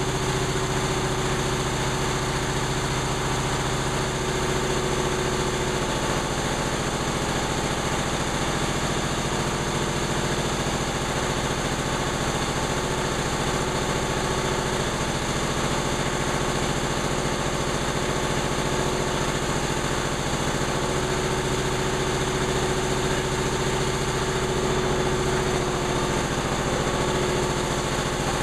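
1930 Atlas Diesel type C2DKV monoblock diesel compressor running steadily at an even speed.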